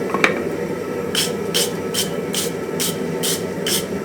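A wire brush scrubbing over the iron of the anvil's welded faceplate: seven short, scratchy strokes at about two and a half a second, starting about a second in, over a steady low rushing noise.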